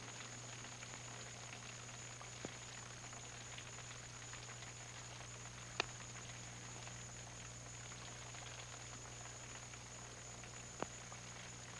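Quiet background of steady tape hiss and low hum, broken three times by faint, sharp clicks, the loudest about halfway through.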